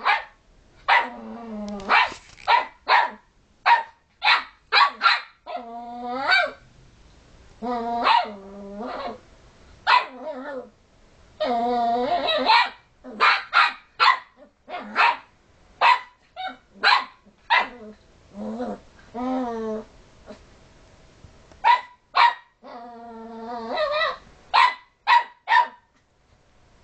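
Puppy barking in a long run of quick, sharp yaps, often several a second, broken by a few longer, drawn-out barks. The barking stops shortly before the end.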